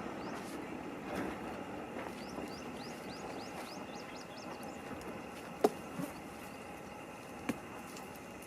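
A small bird repeats quick, short rising chirps over a steady background hiss. A single sharp knock comes about five and a half seconds in, and a fainter one a couple of seconds later.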